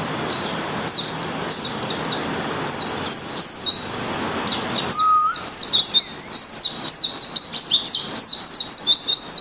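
White-eye (pleci) singing a long, fast, high-pitched song of quick down-slurred notes with hardly a break. A brief lower whistle sounds about five seconds in.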